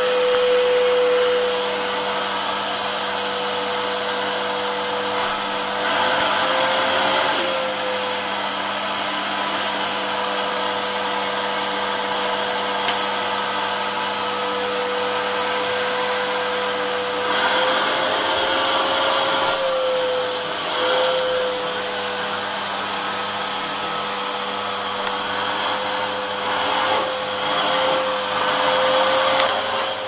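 Vacuum cleaner running steadily as its nozzle is worked over a cat's fur: a constant motor whine over a rushing hiss, the whine rising slightly in pitch now and then. One sharp click about 13 seconds in.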